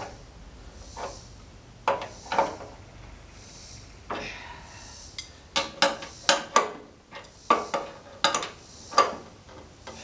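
Steel wrench clinking and knocking against bolts and the steel frame of a sawmill as bolts are tightened: irregular metallic taps, coming thicker in the second half.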